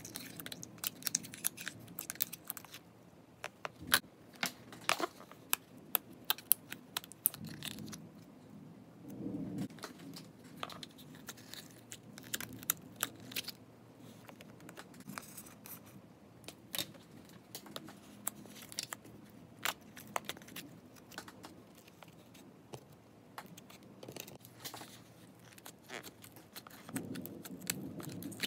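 Hands scooping sticky slime out of a plastic compartment container and handling the plastic: scattered sharp clicks, pops and crackles, thickest in the first several seconds and sparser after.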